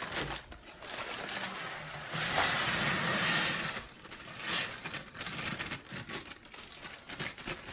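Stainless steel tumbling pins pouring from a plastic bag into a rotary tumbler drum onto 9mm brass casings: a dense rattling hiss with the bag crinkling. The pour is heaviest for about a second a little past two seconds in, then comes in smaller shakes.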